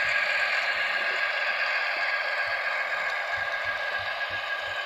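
Sound decoder of a model Köf diesel shunting locomotive playing a steady diesel engine running sound through the model's tiny loudspeaker, thin with no bass, growing slowly fainter as the train moves away. A few soft low knocks come under it.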